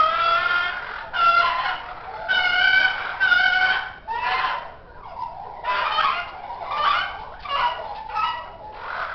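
A run of short, pitched animal calls, about one to two a second, with a brief lull midway.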